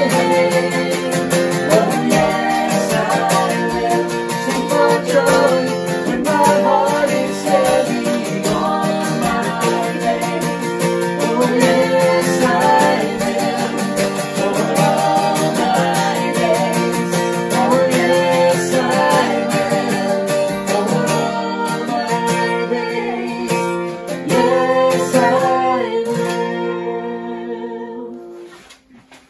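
Small group of voices singing a worship song together, accompanied by a strummed acoustic guitar. The music fades out near the end.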